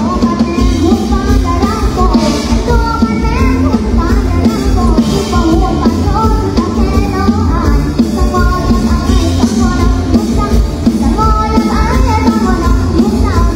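Loud live mor lam band music played through a stage sound system: heavy bass and drums under a gliding sung melody.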